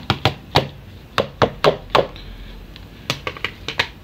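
Repeated sharp knocks of a plastic container being tapped against a mixing bowl to shake out lemon zest, coming in three quick runs of taps.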